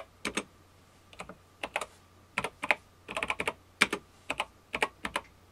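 Keystrokes on the Epson HX-20's built-in keyboard: a string of short, sharp key clicks at an uneven typing pace, some in quick pairs.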